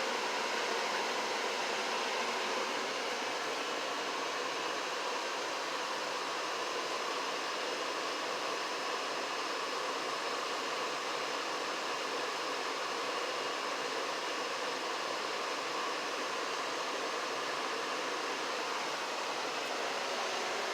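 Janitrol furnace running steadily, an even rushing noise of its burners and blower with a faint steady hum in it.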